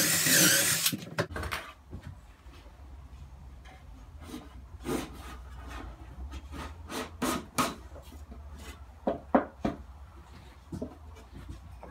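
A drill runs for about the first second, boring a pocket hole in a pine board. After that, a pine shelf board is worked by hand into a pine cabinet box: scattered short wooden knocks and rubs over a low hum.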